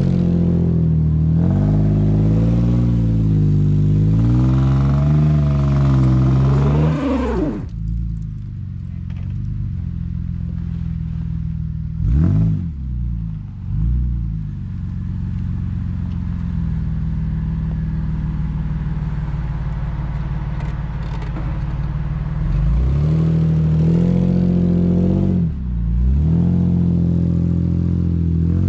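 Nissan Frontier pickup's engine revving in uneven rises and falls, then dropping sharply to a steady lower run about seven seconds in. A short burst of revs comes midway, and the revs rise and fall again near the end.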